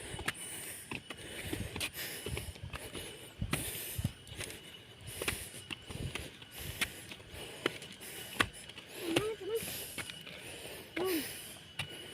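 Footsteps and scuffs of a hiker climbing a hill trail: irregular short knocks and clicks over a steady hiss. There are brief low vocal sounds about nine and eleven seconds in.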